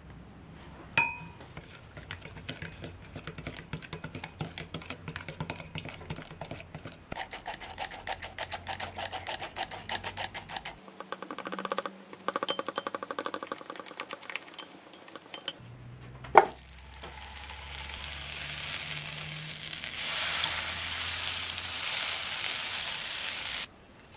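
Plastic whisk beating a runny kefir batter in a ceramic bowl with quick, even strokes, then stirring more slowly as flour is worked in. After a single sharp clink, butter sizzles in a hot frying pan, louder from about two-thirds of the way in, and cuts off suddenly near the end.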